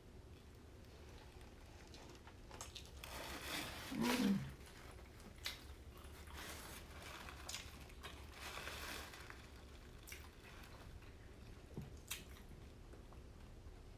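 Close-miked eating of a seafood boil: chewing and biting into lobster, with scattered small clicks and wet crunches and a louder bite about four seconds in.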